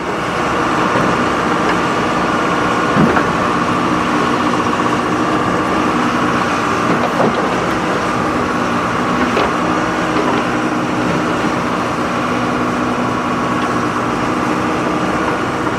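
Heavy diesel machinery running steadily, with a constant engine drone and a high whine held throughout.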